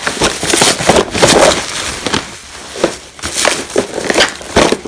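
Plastic bubble wrap crinkling and crackling as a hand pulls and handles it, in irregular sharp clicks with a short lull midway.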